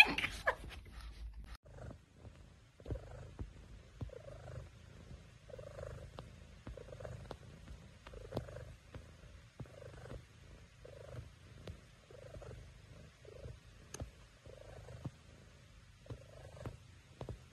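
Domestic cat purring close up, a soft steady rumble pulsing with each breath in and out, starting about two seconds in.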